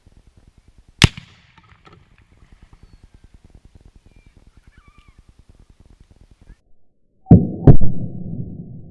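A single sharp gunshot crack about a second in. Near the end, two loud blasts in quick succession, the second the sharpest, then a long low rumble as a tannerite charge detonates. A faint rapid low pulsing runs underneath in between.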